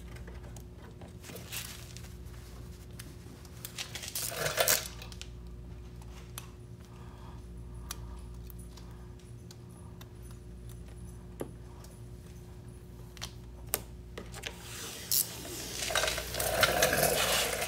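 Transfer paper being peeled off a freshly applied vinyl decal on a car's tail lamp: small scattered clicks of fingers working the edge, a short papery rasp about four seconds in and a longer one near the end as the paper comes away. A faint steady hum runs underneath.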